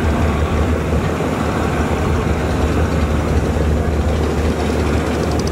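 Large multi-deck river passenger launch's diesel engines running, a steady, loud, low drone.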